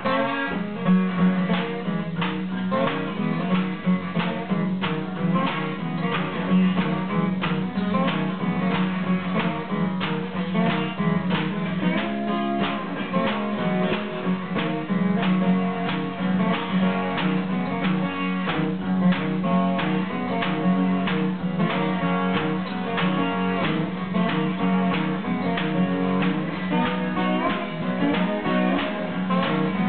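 Acoustic guitars playing an instrumental blues-country tune together, a slide guitar over a steady strummed rhythm.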